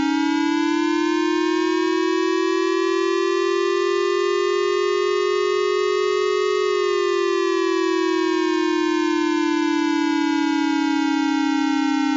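Warning siren sounding one long continuous tone, played as an alarm sound to be identified. Its pitch rises slowly for about six and a half seconds, then falls back slowly.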